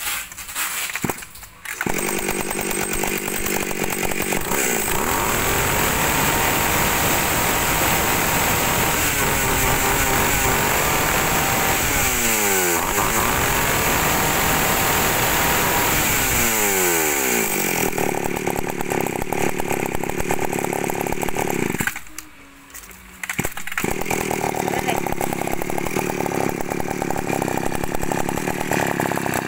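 Two-stroke chainsaw engine running after a start about two seconds in, its pitch dipping and climbing again twice around the middle. It drops out for about a second and a half near the two-thirds mark, then runs again.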